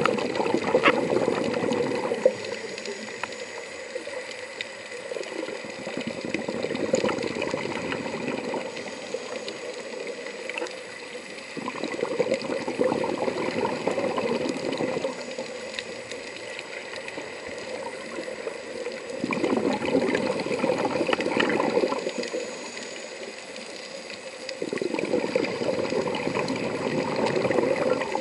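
Scuba regulator exhaust bubbles heard underwater: a burst of bubbling with each exhaled breath, about five bursts of two to three seconds, roughly every six seconds, with a quieter hiss between them.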